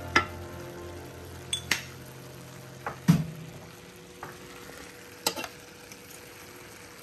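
A metal fork stirring and scraping in an enamelled cast-iron skillet, with several sharp clinks and knocks against the pan, the loudest about three seconds in, over a faint sizzle of ground-beef gravy on high heat.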